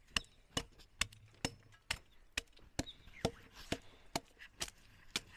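Axe chopping wood: a steady run of about a dozen sharp strikes, a little over two a second.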